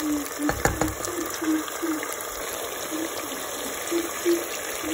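Potatoes in tomato masala frying in a non-stick pot, a steady sizzle with short bubbling pops, as a wooden spoon stirs and scrapes; a few knocks of the spoon about half a second in.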